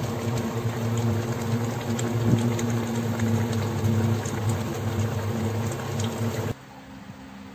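Pot of pork sinigang broth bubbling at a boil, small pops over a steady low hum. The sound cuts off suddenly about six and a half seconds in, leaving only a fainter hum.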